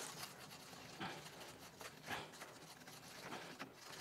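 Handheld wire brush scrubbing inside the threads of a rusted cast iron pipe hub: faint, with a few soft scratching strokes, clearing out caked-on gunk.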